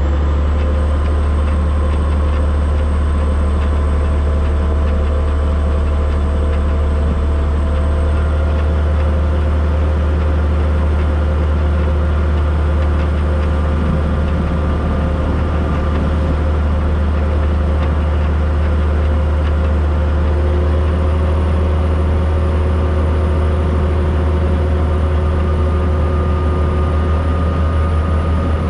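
Steam locomotive running steadily along the narrow-gauge line, heard from a camera mounted on it: a loud, unchanging low rumble with faint steady tones above it.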